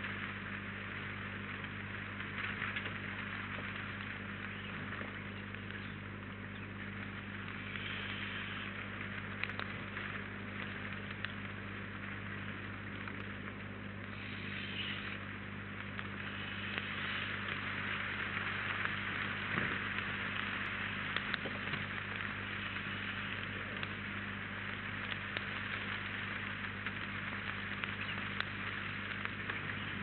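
Graupel (snow pellets) falling and pattering: a steady hiss made of many fine ticks, with a steady low hum underneath.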